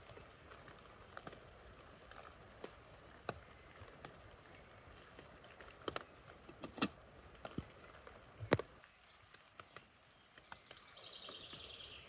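Faint pouring of hot water from a small camping kettle into a flask, with scattered light taps and clicks of the metal kettle and flask being handled. A short, high, falling chirp comes near the end.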